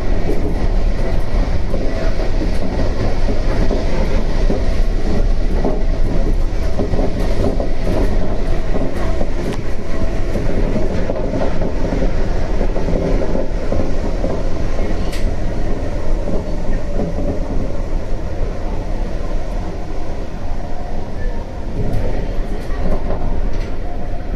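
Shonan Monorail Series 5000 suspended monorail car running along the line, heard from inside the cabin: a steady, loud rumble with scattered light clicks and knocks.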